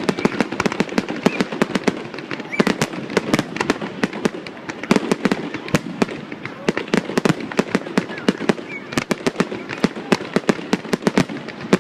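Fireworks display: a dense, continuous barrage of sharp bangs and crackles, several every second.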